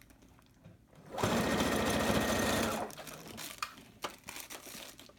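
Brother electric sewing machine running a straight stitch for just under two seconds, starting a little over a second in, as a hair weft track is sewn onto a mesh wig cap. A few light clicks follow as the work is handled.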